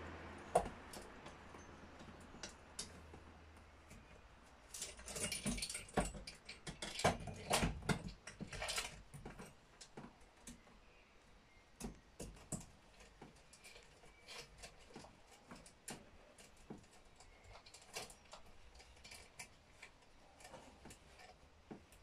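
Metal saw chain clicking and rattling as it is handled and fitted onto a chainsaw guide bar. The clicks come thickest a few seconds in, then thin out to scattered light ticks.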